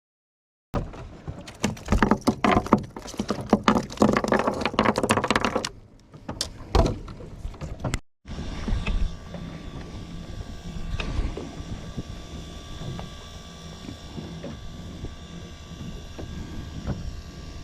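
Fishing boat at sea: a steady engine hum with wind and water noise, after a first few seconds of dense clattering and knocking.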